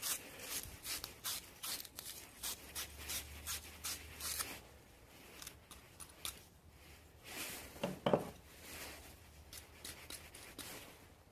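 A 1/2-inch wire fitting brush scrubbing a pipe fitting clean before soldering, a quick series of scratchy strokes about three a second that slows and grows fainter after about four seconds.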